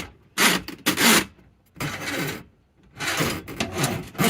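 Drain snake cable rasping and scraping in the drain pipe as it is pulled back out, in a run of separate strokes with a longer one near the end.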